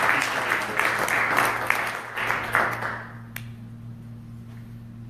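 Congregation applauding, the clapping dying away about three seconds in.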